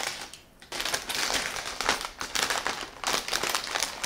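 Plastic snack bag crinkling and rustling as it is handled, an irregular crackle that starts about half a second in.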